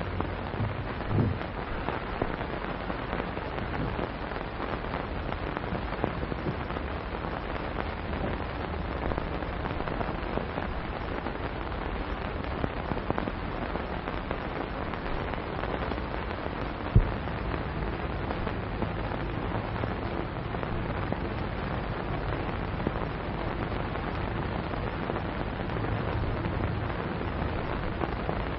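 Steady hiss and crackle of an old film's soundtrack, with scattered pops and one sharp click about seventeen seconds in.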